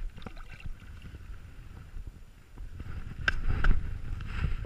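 Gloved hands splashing and sloshing in shallow river water, over a steady low rumble of wind on the microphone. A few sharp splashes or knocks come a little after three seconds in.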